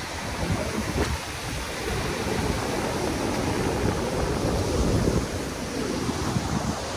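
Ocean surf breaking over rocks and washing across a rocky shore: a continuous rush of water, with wind buffeting the microphone in low rumbles.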